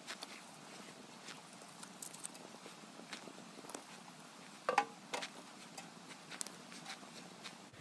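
Split firewood being loaded into a small sheet-metal tent stove: faint scattered clicks and crackles, with one louder knock of wood against the metal about five seconds in.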